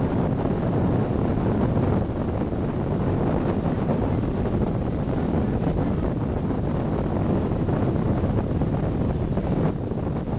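Wind buffeting the microphone aboard a small boat under way: a steady low rumble, with the noise of the boat moving through the water under it.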